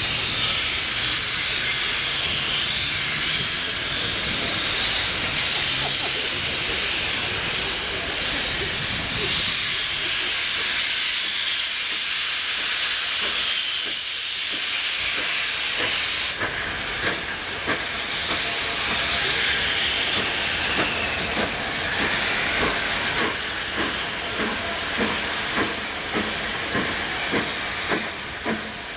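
Steam locomotive approaching with a loud, steady hiss of escaping steam that cuts off suddenly about halfway through. After that its exhaust chuffs come through as an even beat of roughly one a second, growing clearer as it nears.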